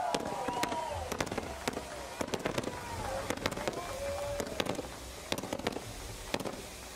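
Celebration fireworks popping and crackling: irregular sharp pops, some in quick clusters, growing gradually fainter. Shouts and cheers are mixed in.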